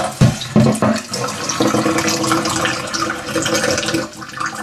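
Water running from a tap, a steady loud rush used as white noise for a spirit-box session, with a couple of low thumps in the first second.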